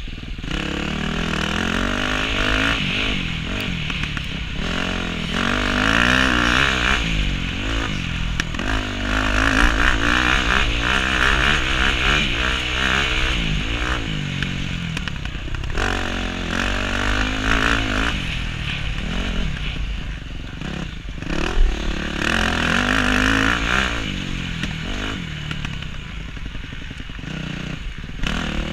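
KTM motocross bike engine heard on board, revving up and down again and again as the rider accelerates, shifts and rolls off through the corners, with scattered knocks from the bike over the rough track.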